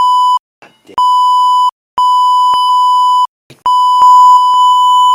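Loud censor bleep: a steady, single-pitched beep tone switched on and off in four stretches of about half a second to a second and a half, covering swearing.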